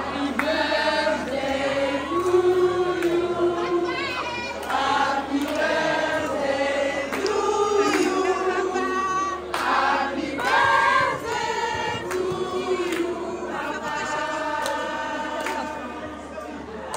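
Church choir singing a hymn, several voices together in sustained sung lines.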